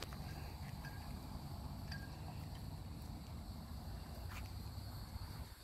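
Steady high-pitched insect chorus over a low rumble, with a few faint clicks.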